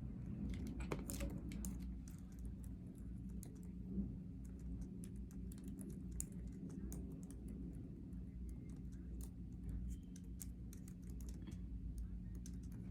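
Many small, irregular clicks and ticks over a steady low hum.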